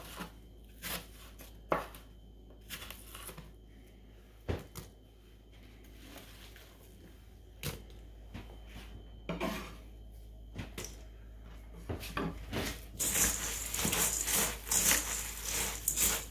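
Kitchen knife striking a plastic cutting board in scattered single chops as apples are diced, then apple pieces scraped off into a steel bowl. Near the end, dry stuffing bread cubes are tossed with a spatula in the steel bowl, a dense crackling rustle.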